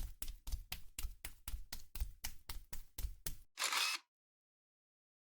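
A run of sharp, evenly spaced clicks, about four a second, ending in a short burst of hiss about three and a half seconds in, then silence.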